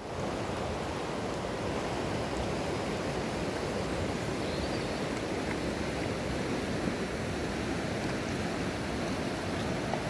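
A river in full flow after flooding, fast shallow water rushing over a stony bed: a steady rushing noise.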